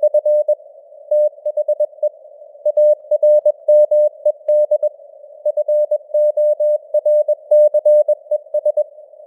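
Morse code (CW) sent at 21 words per minute: a single steady beep tone keyed on and off in short dots and longer dashes, over a narrow band of simulated radio-receiver hiss around the tone.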